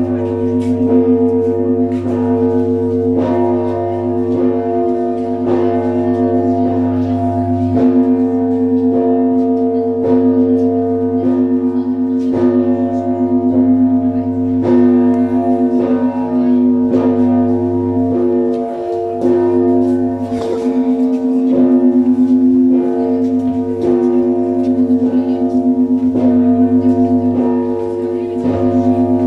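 Russian Orthodox church bells of the Trinity-Sergius Lavra belfry ringing together. Fresh strikes come about once a second, over the steady hum of the larger bells.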